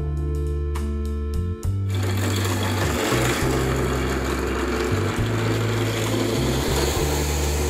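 Background music with a steady bass line. About two seconds in, an ice-shaving machine grinding ice adds a loud, grainy hiss over the music.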